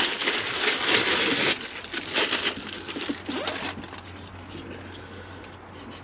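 Plastic wrapping crinkling and rustling as a CB radio microphone is unwrapped by hand, loudest in the first second and a half and easing off after about four seconds. Then come a few light clicks as the mic and its cable are handled.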